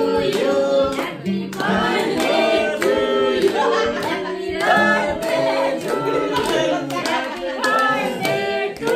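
A group of people singing together while clapping their hands in a steady beat.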